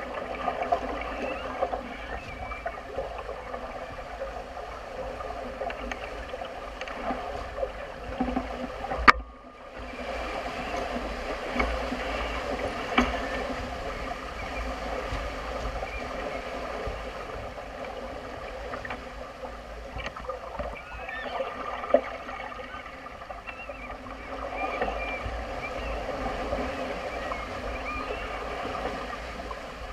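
Najad sailing yacht under sail in a choppy sea: water rushing and splashing along the heeled hull, over a steady low wind rumble. There is a sharp knock about nine seconds in and a few lighter clicks later.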